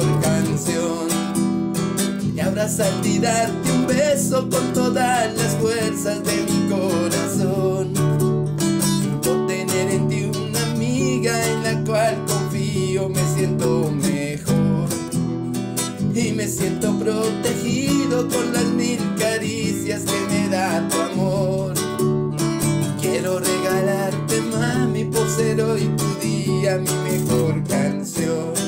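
Acoustic guitar strummed steadily through an instrumental break of the song, with no singing.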